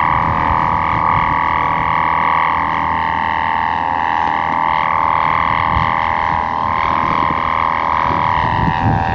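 Sendaran kite hummer on a 2-metre sawangan kite droning steadily in the wind: a loud buzzing hum that wavers slightly in pitch. Wind rumbles on the microphone underneath.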